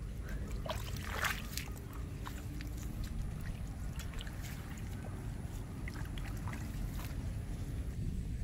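Splashing and sloshing in a shallow muddy puddle as hands grab the fish and boots wade through the water, a scatter of short splashes, busiest about a second in, over a steady low rumble.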